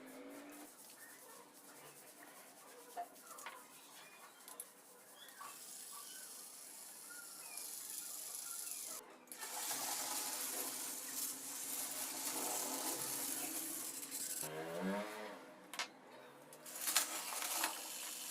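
Battery-operated toy steam train running with its built-in sound effects: a steady steam-like hiss for much of the time, a short pitched sound about fifteen seconds in, and small plastic clicks and rattles from the toy's mechanism.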